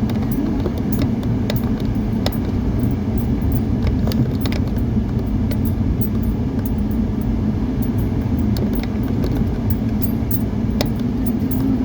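A car's engine and tyres rumbling steadily, heard from inside the moving vehicle, with frequent small clinks and rattles over the top.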